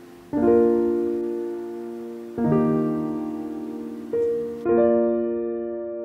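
Background music: slow piano chords, three struck about two seconds apart and each left to ring out and fade, with a single note added between the last two.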